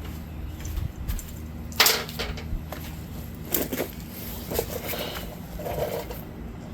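Small parts being rummaged through and handled: scattered clicks, knocks and rattles, the loudest a sharp knock about two seconds in, over a steady low hum.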